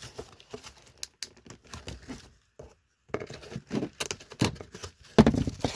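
Packaging being handled in a cardboard case: crinkling paper and plastic with scattered clicks and knocks, as blister-carded diecast cars are shifted about. It pauses for about a second midway, and the loudest knocks come near the end.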